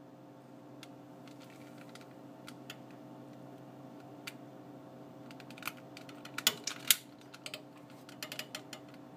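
Scattered sharp clicks and taps from a long-nosed utility lighter worked at a glass memorial-candle jar, loudest in a cluster about seven seconds in, over a steady low hum.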